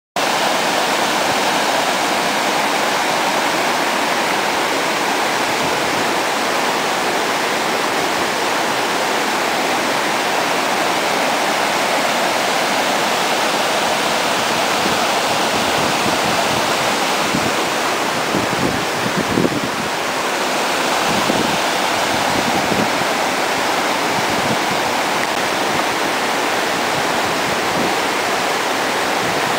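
Flash-flood torrent of white water rushing steadily over grassland and past fence posts, runoff from a cloudburst of extreme rainfall.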